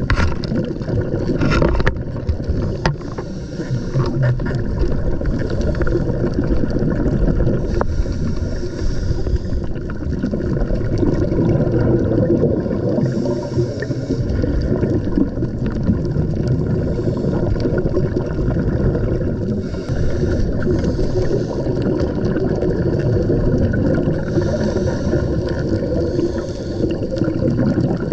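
Underwater recording: a steady muffled rumble of water, with the hiss and gurgle of a scuba diver's exhaled bubbles coming about every four to five seconds.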